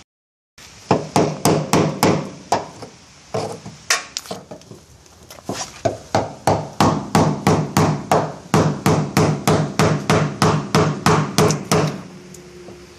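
Hammer striking a wood-handled chisel to chip Bondo body filler off the steel nose panel of a VW Type 2 bus. Sharp blows come about two to three a second, ease off briefly about four seconds in, and stop about a second before the end.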